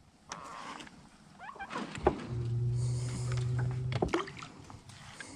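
A small electric motor hums steadily for about two seconds, switched on and off with a click each time.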